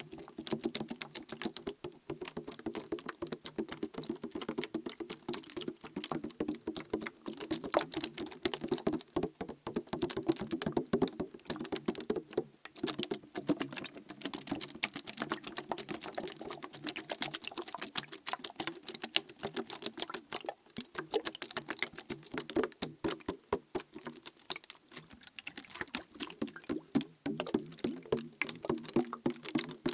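Plastic bottle of liquid being tapped and shaken close up: rapid, dense clicks and taps on the plastic throughout, with the liquid sloshing inside.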